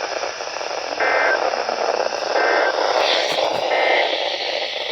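Weather radio receiver hissing loudly with static from weak reception. Faint fragments of the broadcast voice break through the noise a few times.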